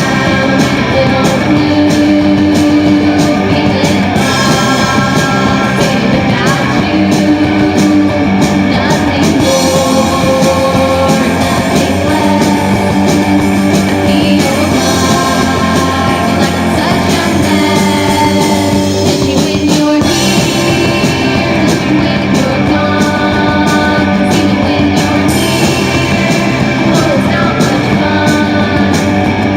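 Guitar-led rock song from a band's demo recording, playing loud and without a break.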